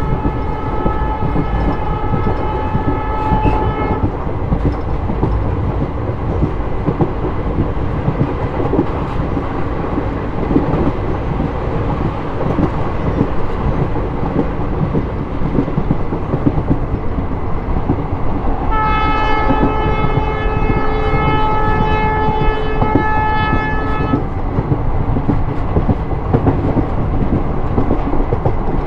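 Diesel locomotive horn sounding two long blasts, the first lasting about four seconds and the second about five seconds, starting some nineteen seconds in. Underneath is the steady rumble and wheel clatter of the moving passenger train.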